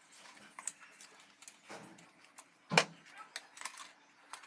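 Plastic in-tank fuel pump module being handled and turned over while its clips are checked: scattered light clicks and rattles, with one sharp louder knock about three seconds in.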